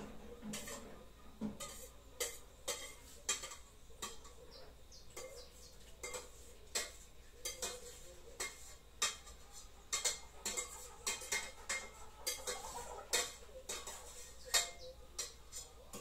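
Kitchen utensils clinking and knocking against dishes and cookware in an irregular series of sharp clicks, several a second at times, as food is prepared.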